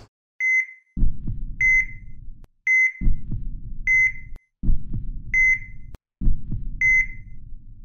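Outro sound effect: a short electronic beep repeating about once a second, like a heart monitor, over low double thumps like a heartbeat.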